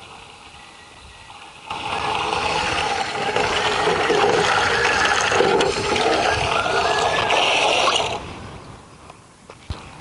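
Water running and splashing into a container, starting suddenly about two seconds in, loud and steady for about six seconds, then dying away near the end.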